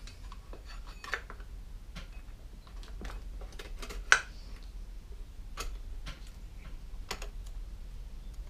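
Scattered clicks and knocks of a Homelite chainsaw's chain-brake lever and plastic housing being worked by hand while the brake is checked for binding, with one sharp, loud click about four seconds in.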